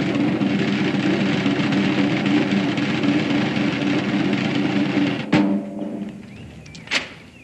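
Military snare drum roll with low sustained notes beneath it, the roll that marks a prisoner being led to execution. It breaks off with a sharp final stroke about five seconds in that rings away, and a second short, sharp sound follows near the end.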